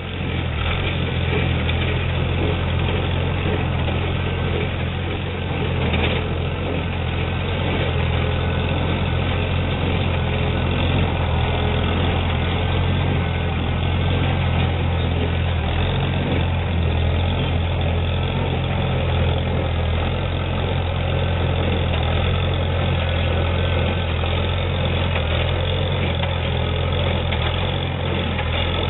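Tractor engine running steadily, driving an International 37 square baler as it works.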